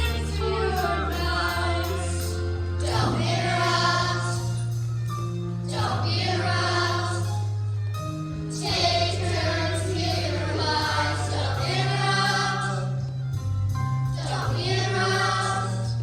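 A group of children singing a song together over an instrumental accompaniment, with a bass line of held notes that changes every couple of seconds.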